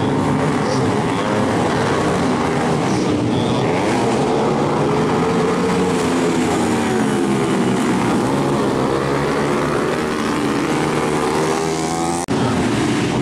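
Several tuned 150cc four-stroke supermoto motorcycles racing, their engines revving up and down, overlapping with one another. The sound drops out for a split second near the end.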